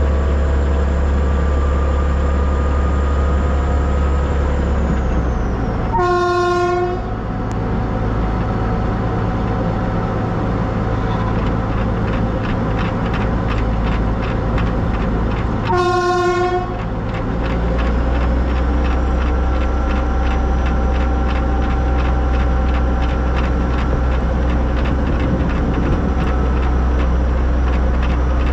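Narrow-gauge steam locomotive running, with two short whistle blasts of about a second each, one about six seconds in and the other about sixteen seconds in, over a steady low rumble.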